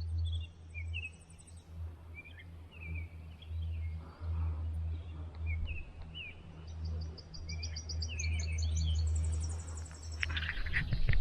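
Small birds chirping over and over, with thin high trills near the start and again late on, over a low, uneven rumble.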